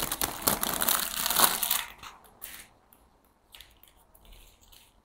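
Clear plastic plant sleeve crinkling as it is pulled off a potted plant: dense crackling for about two seconds, then a few scattered, fainter rustles.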